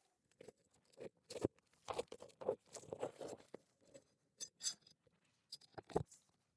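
Asphalt roof shingles being handled and worked by hand: irregular crunching and scraping with a few sharp clicks, busiest in the middle and again just before the end.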